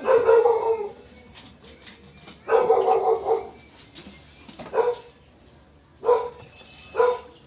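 A dog barking in five bursts spaced a second or two apart, the first two longer than the rest.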